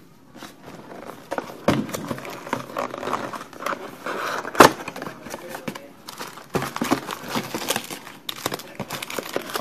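Plastic shrink wrap crinkling and tearing as a sealed trading-card box is opened and handled, with scattered small clicks and one sharp knock about halfway through.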